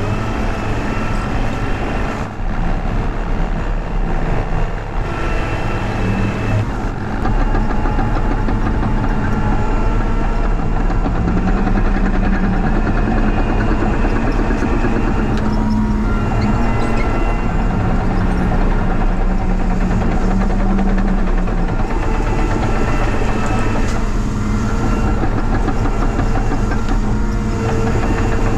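Caterpillar 953C track loader's diesel engine running under load, its revs rising and falling as it works. The loader has a broken muffler.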